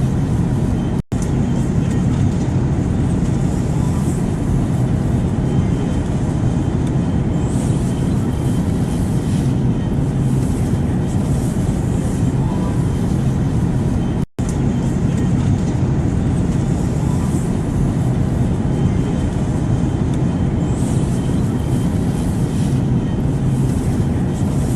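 Airplane noise: the steady, even rumble of the engines and rushing air, heaviest in the low end with a faint constant hum. It cuts out for an instant twice, about a second in and again about fourteen seconds in.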